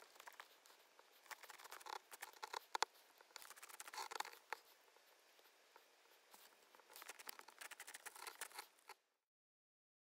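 Faint rustling and crackling made of many fine clicks, coming in three louder bursts with one sharper click near three seconds in. It cuts off suddenly about nine seconds in.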